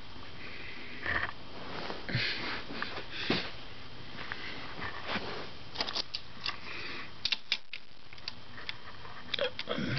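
Several short breathy sniffs close to the microphone, then scattered light clicks and rustles from the camera being handled.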